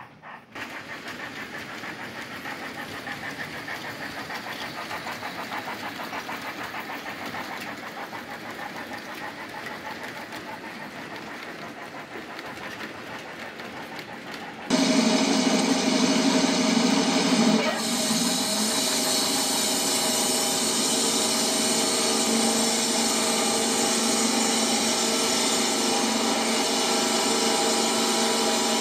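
Sound-equipped O scale model steam locomotive running, with a rhythmic hissing chuff. About halfway through, a much louder steady droning hum of several held tones cuts in suddenly and runs on, dipping briefly in pitch a few seconds later.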